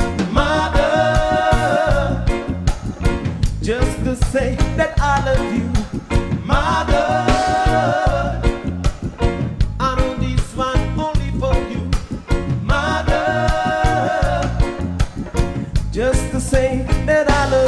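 Live reggae band playing, with a bass-heavy groove of bass guitar, drums, guitar and keyboards under a male singer who holds long notes about every six seconds.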